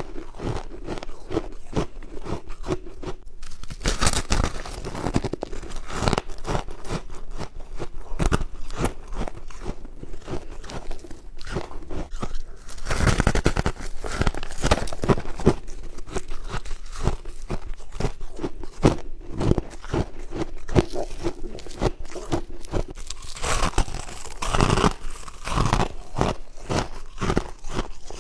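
Close-up crunching and chewing of bites of white humidifier frost: dense, irregular crackling crunches without a pause.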